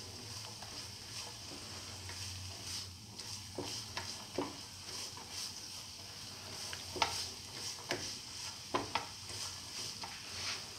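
Chopped onions sautéing in hot oil in a pan with a steady, soft sizzle. A spatula stirring them scrapes and clicks against the pan now and then, the sharpest click a little past halfway.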